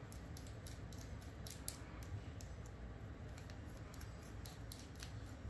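Faint, scattered small clicks and ticks of a 1.5 mm hex driver turning tiny screws into the top of an RC shock cartridge held in the hand.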